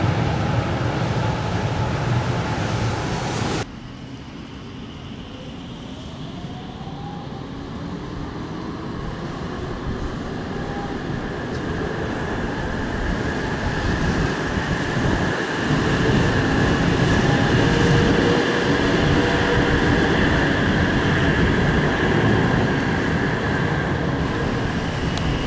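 Electric tram running on its rails. After an abrupt cut about three and a half seconds in, the running noise builds steadily louder as it picks up speed, with an electric whine that rises in pitch and then holds steady.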